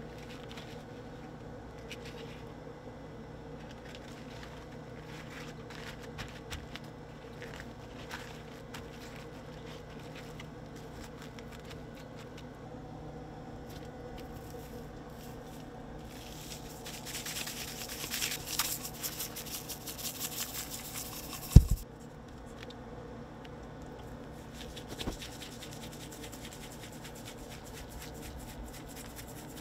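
Cajun seasoning shaken from a shaker can onto raw fish fillets: a rattling hiss for several seconds past the middle, ending in one sharp thump. Faint handling and patting sounds otherwise, over a steady low hum.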